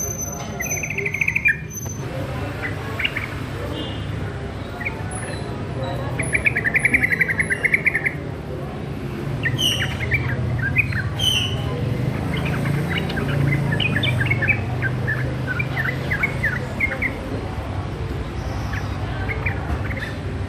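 Young sooty-headed bulbul (trucuk) singing in its learning stage: two fast trills, one near the start and one about six seconds in, then a long run of short chirpy notes, over a steady low hum.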